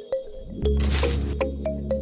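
Background music: a deep bass line that drops out briefly and returns about half a second in, under short clicking notes, with a brief hiss about a second in.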